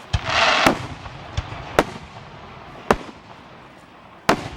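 Fireworks going off: about six sharp bangs from bursting shells, spaced irregularly, with a brief hissing crackle just before the second bang near the start.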